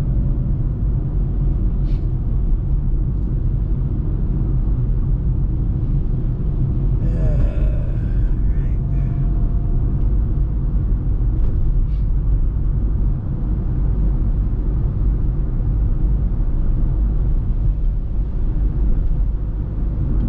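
Steady low road and engine rumble heard from inside a moving car's cabin, with a brief burst of hiss about seven seconds in.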